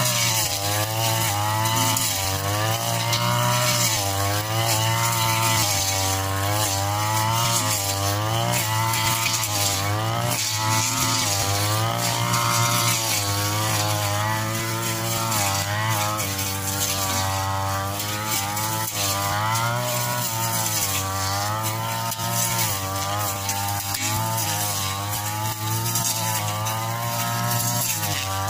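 Backpack brush cutter engine running at high revs while cutting grass, its pitch dipping and rising every second or two as the cutting head sweeps into the grass and takes load.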